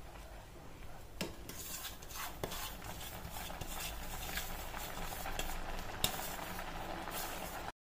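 Wooden spatula stirring semolina into boiling milk and water in a pan as the semolina is poured in a little at a time from a steel bowl, a steady scraping and bubbling with a few sharp knocks, the loudest about six seconds in. The sound cuts off abruptly just before the end.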